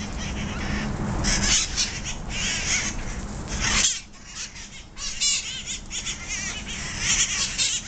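A flock of feral red-masked parakeets (cherry-headed conures) screeching and squawking, many harsh calls overlapping. A low rumble sits under the calls until about four seconds in.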